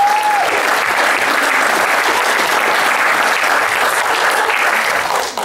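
Theater audience applauding, loud and sustained, dying away at the very end.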